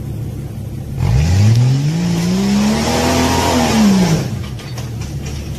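A 4x4's engine idling, then revved hard about a second in as the vehicle climbs a rock ledge, its pitch rising and then falling away near four seconds, with a loud hiss over it while it is on the throttle.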